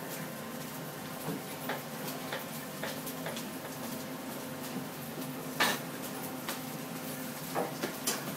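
Kitchen clatter: scattered light clicks and knocks, with one louder clack about five and a half seconds in, over a steady low hum.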